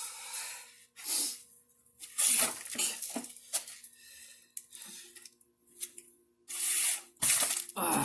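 Several short scraping, hissing bursts of hand-tool work on a small engine: a socket wrench that doesn't properly fit being forced onto a bolt. The bursts come irregularly, with quieter gaps between them.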